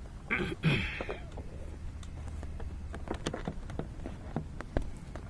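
Handling noise of a flexible solar panel and its cable being placed on a van roof: a short louder burst about half a second in, then scattered light taps and clicks, with a sharper knock near the end.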